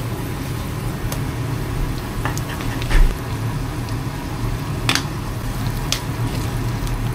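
Ground meat and greens frying in a pan, with a spatula scraping and knocking against the pan a few times, the loudest knock about three seconds in, over a steady low hum.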